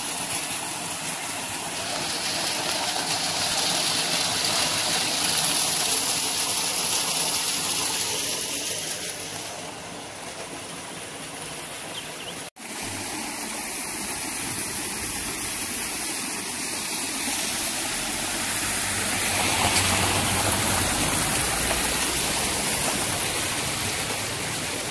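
Muddy floodwater rushing through a concrete drainage channel and roadside ditch: a steady, loud rush of water, broken once by a sudden cut about halfway through.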